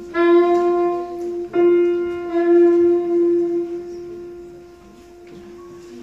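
Soprano saxophone playing the same long note three times, a little over a second each, over a held piano note of the same pitch, as when tuning up; the saxophone stops about two-thirds of the way through and the piano note carries on quietly.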